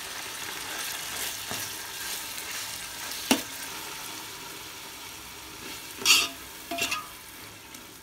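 Chopped tomatoes and onions sizzling in oil in a metal pot as a metal spoon stirs and scrapes them, the tomatoes being cooked down until soft. The spoon knocks sharply on the pot about three seconds in and twice more a little past the middle, the first of those two the loudest, while the sizzle slowly quietens.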